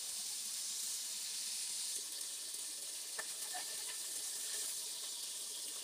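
Pieces of tilapia frying in hot oil in a pan, a steady sizzling hiss, with a couple of faint spatula taps about two and three seconds in.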